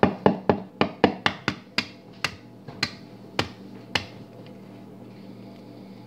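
An egg tapped repeatedly against the rim of a wooden bowl to crack its shell: about a dozen sharp taps, quick at first and spacing out, stopping about four seconds in.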